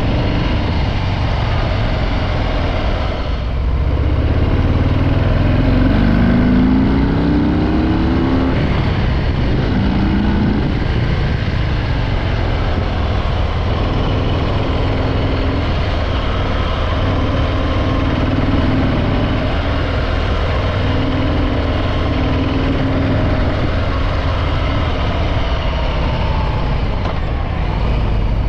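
Harley-Davidson Breakout 114's Milwaukee-Eight 114 V-twin on its stock exhaust, under way. The engine note dips about three seconds in, then climbs twice as the bike accelerates, and settles into steady cruising.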